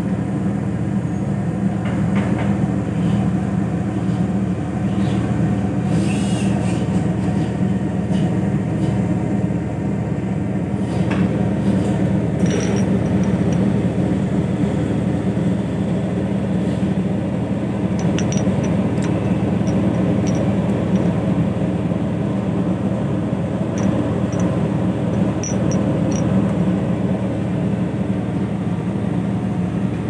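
Steady low machine drone with a few faint ticks.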